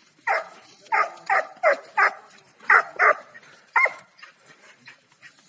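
Young Serbian tricolour hound barking repeatedly at a wild boar, about eight sharp barks in quick, uneven succession over some four seconds, then a short lull near the end.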